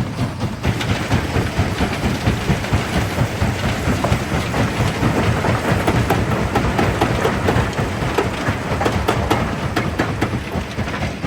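Primary jaw crusher running, a steady low rumble under a rapid, continuous run of cracks and knocks as stone breaks and grinds between the jaws.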